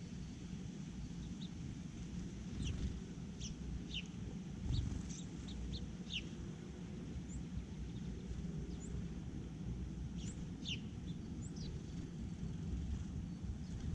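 Small songbirds giving short, sharp chirps, scattered and irregular, each a quick downward slide in pitch, over a steady low rumble.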